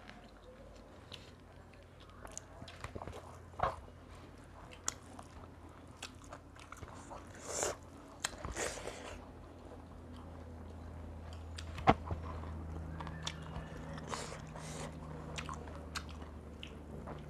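Close-miked chewing and wet mouth sounds of people eating a rice meal with their hands, with many small scattered clicks and a sharp click about twelve seconds in.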